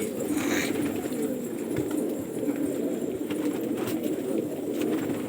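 A flock of domestic gola pigeons cooing together, a continuous low burbling of many overlapping calls.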